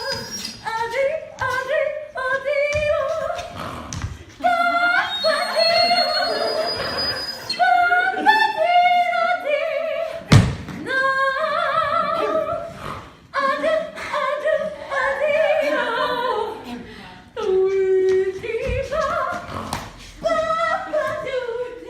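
Wordless scat singing: voices sliding through bending, broken-up nonsense syllables. A single sharp thump cuts in about ten seconds in.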